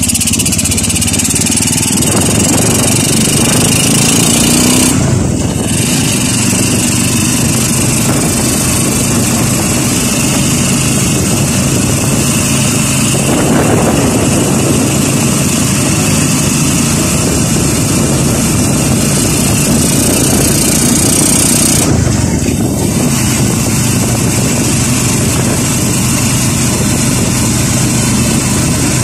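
Motorcycle engine of a tricycle running steadily under way, with a loud hiss of rushing noise over it. The engine pitch rises early on, and the sound eases off briefly twice, about five seconds in and again about twenty-two seconds in.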